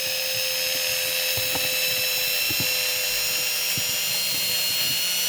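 Chicago Electric rotary tool running steadily on low speed with a diamond bit held under water, a constant high-pitched whine with a few faint ticks.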